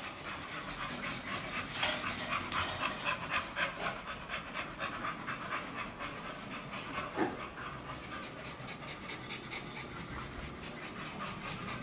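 A pit bull panting rapidly and steadily, with a short falling squeak about seven seconds in.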